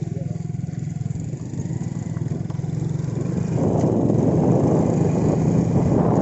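Motorcycle engine running steadily while riding. About three and a half seconds in, wind rushing over the microphone joins it and the sound grows louder.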